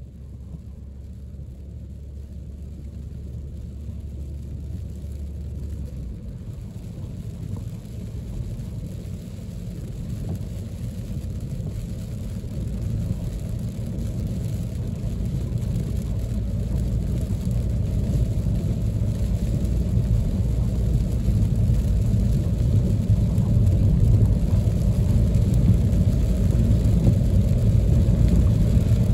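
Car cabin noise while driving on a rain-soaked road: a steady low rumble of tyres on wet asphalt and the engine, growing steadily louder.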